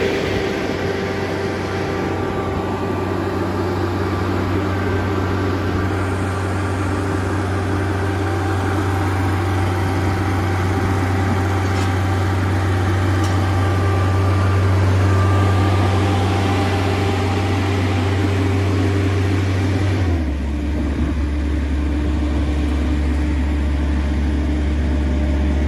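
IMER Mover 270 D EVO screed pump's diesel engine running steadily, with a rushing hiss over it. About 20 seconds in its pitch drops and the hiss fades, and it runs on at a lower, steady note.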